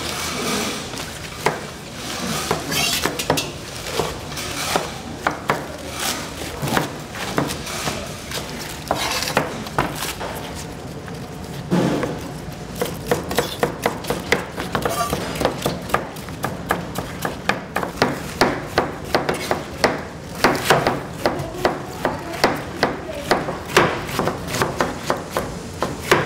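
Chef's knife chopping vegetables on a plastic cutting board: quick repeated knocks of the blade on the board, sparse at first, then a fast, steady run in the second half.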